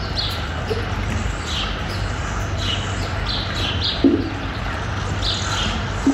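Birds chirping: short, downward-sliding chirps repeated every half second or so over steady background noise, with a short low thump about four seconds in and another near the end.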